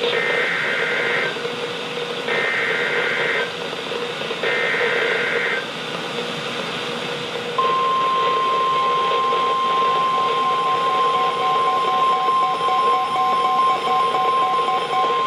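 NOAA Weather Radio Emergency Alert System signal heard through a weather radio's speaker over static hiss. It opens with three short bursts of warbling SAME data tones about a second apart, then the long steady warning alarm tone starts about halfway through and keeps going. It is the alert header and alarm that open a new severe thunderstorm warning.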